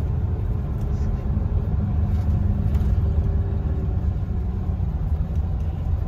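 Coach bus engine running, heard from inside the passenger cabin as a steady low rumble with a faint hum over it.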